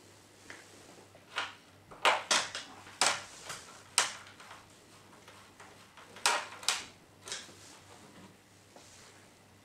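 Hard plastic parts of a Jura coffee machine's housing clicking and knocking as they are handled and fitted during reassembly, in two clusters of sharp knocks about two and six seconds in.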